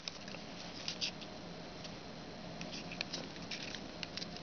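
Foil origami paper crinkling faintly in the fingers as its layers are pressed and folded, a scatter of small sharp crackles and rustles.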